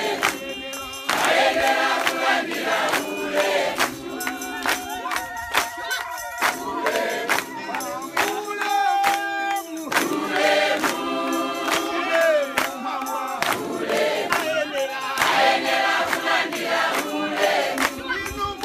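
A large congregation singing a hymn together in harmony, many voices at once, with hand clapping along.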